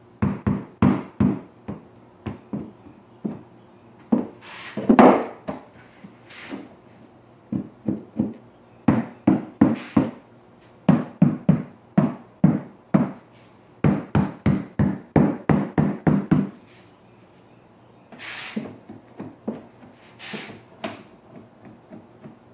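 A mallet tapping luxury vinyl planks into place on a plywood subfloor to lock their joints together: runs of quick, sharp knocks a few times a second, broken by short pauses. Softer scuffing sounds follow near the end.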